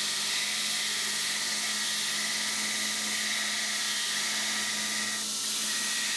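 Belt grinder running steadily, its abrasive belt grinding the forge-weld seams off a wrought iron and 1084 steel billet, a continuous hiss over the motor's hum with a brief dip about five seconds in.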